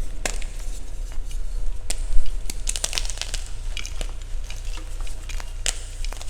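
Chalk being crushed and crumbled by hand: a run of irregular, crisp snaps and crackles.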